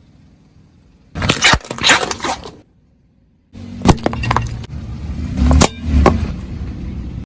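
Crunchy objects cracking and breaking under a car tyre: sharp cracks and crunches, cut off abruptly, then a second run of cracks and pops after a brief quiet gap.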